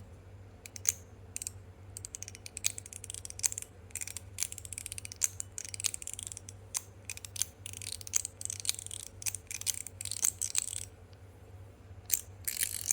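Stainless steel slider fidget worked back and forth right against the microphone: sharp metallic clicks as it snaps into place, with short sliding scrapes between them, in quick irregular runs and a brief pause about eleven seconds in.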